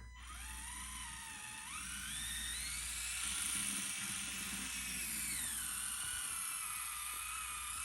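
Electric motor and gears of an Axial SCX30 micro RC crawler whining under throttle. The pitch rises about two seconds in as it speeds up, holds, then falls back a little past the middle as it slows.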